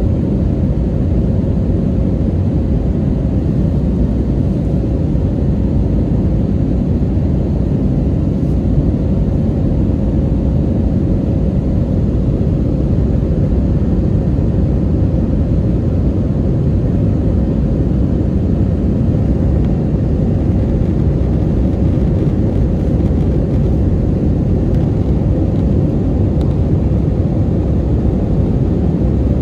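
Steady jet engine and airflow noise inside an airliner's passenger cabin, a dense low noise with a faint steady tone running through it.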